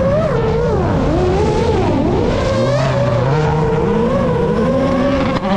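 Citroën C3 WRC rally car's turbocharged engine revving hard at full throttle, its pitch climbing and dropping again and again with lifts and gear changes.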